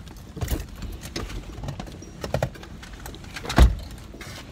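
A few light knocks and clicks, then one louder thump about three and a half seconds in, over the low rumble of a car interior.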